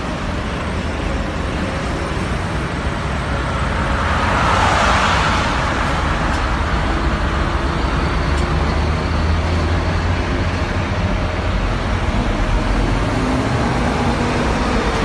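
A line of touring coaches driving past one after another: steady engine rumble and tyre noise, loudest as one coach goes by about four to five seconds in.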